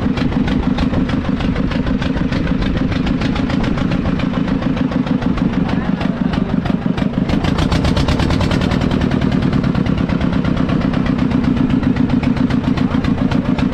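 Fishing boat's engine running steadily with the boat underway, a fast, even pulse of firing strokes.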